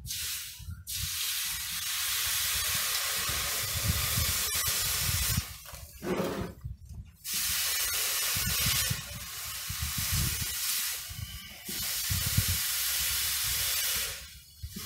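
Red-hot steel axe head hissing as it is quenched in a trough, held in tongs and dipped in and out: long stretches of steady hiss with a break about five seconds in, marked by a short gurgle, and the hissing stopping near the end.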